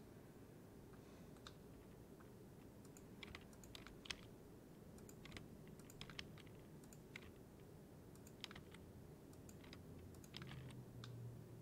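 Faint, irregular clicks of a computer keyboard and mouse, a few at a time with pauses between. A low hum comes in near the end.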